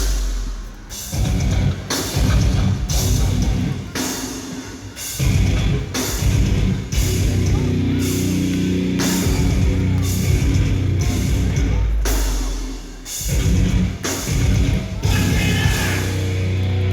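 Live heavy metal band playing loudly: distorted guitars and bass under heavy drum hits about once a second, with vocals.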